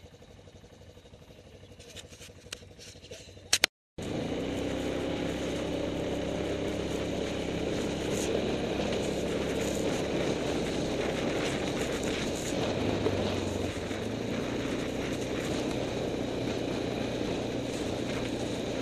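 Quad bike (ATV) engine running steadily while riding, heard from a camera mounted on the machine. The engine sound cuts in abruptly about four seconds in, after a few sharp clicks over faint background noise.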